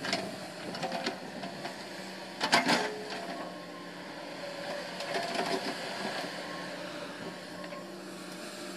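Komatsu hydraulic excavator running with a steady engine hum as it works its bucket in peat soil, with a sharp knock about two and a half seconds in.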